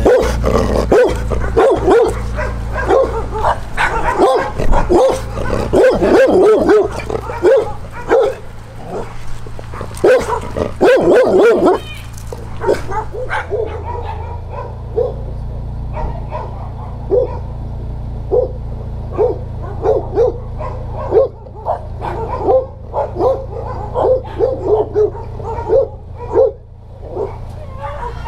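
Dogs barking over and over, dense and overlapping in the first half, then a steadier run of short barks about two a second. A low, steady vehicle engine hum runs underneath.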